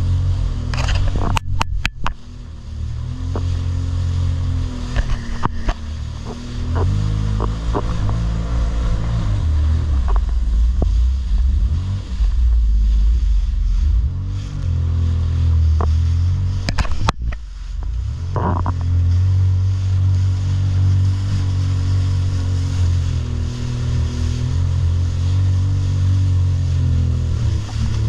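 Jet ski engine running at speed, its pitch rising and falling as the throttle changes, with a few sharp knocks on the hull in the first couple of seconds and again about halfway.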